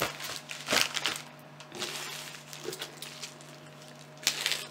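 Plastic packaging being handled, with a few scattered crinkles and taps, then a sharp snip about four seconds in as scissors cut into a white plastic bag.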